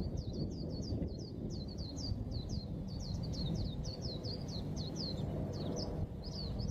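White-eye (pleci) singing a rapid, continuous run of short, high, downward-slurred chirps, about four or five a second, over a steady low rumble.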